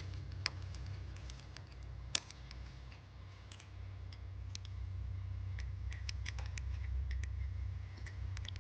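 Scattered light clicks and taps of small metal parts and a pick while check valves are worked out of a pressure washer's brass pump head, over a steady low hum.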